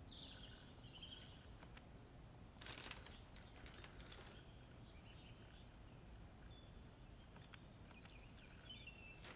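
Near-silent room tone with faint, scattered bird chirps, and a brief rustle about three seconds in.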